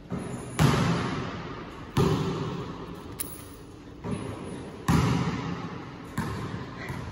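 A basketball thudding on the court and backboard about six times, each hit followed by a long echo in a large metal-walled gym.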